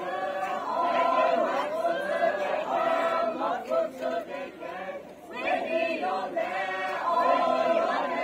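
A group of children singing a chant-like song together in unison, in phrases, with a short break about five seconds in.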